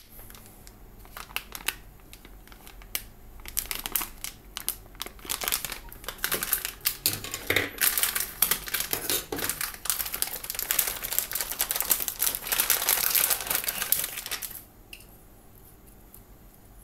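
Metallized anti-static bag crinkling and crackling as it is handled and opened to take out a circuit board. The crinkling builds, is densest in the middle, and stops suddenly about two seconds before the end.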